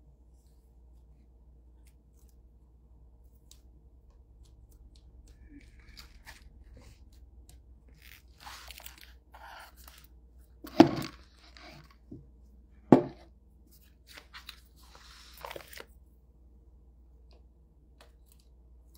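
Paper pages of a Bible rustling and being turned in short bursts while the reader looks up a passage. Two sharp knocks about eleven and thirteen seconds in are the loudest sounds.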